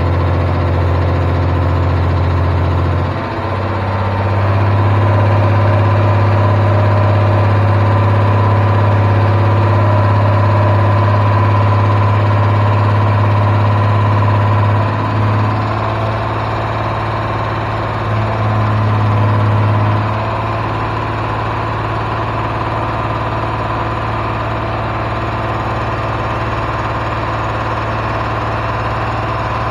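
Freshly rebuilt Chevy 4.3-litre V6 running steadily at a fast idle during its first start and flat-tappet cam break-in, the engine speed stepping up about three seconds in and easing back a few times later. Electric radiator fans run noisily underneath.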